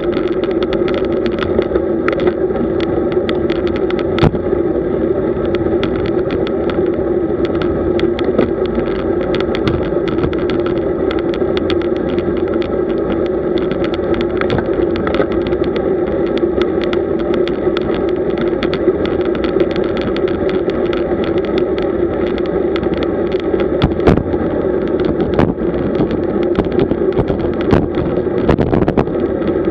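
Steady riding noise of a road bicycle on the move: a constant hum of tyres and wind, dotted with frequent small clicks and knocks.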